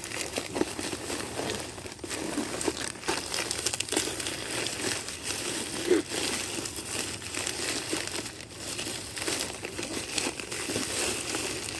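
Packaging crinkling and rustling continuously as a parcel is unwrapped and emptied by hand: a dense, irregular crackle of small clicks.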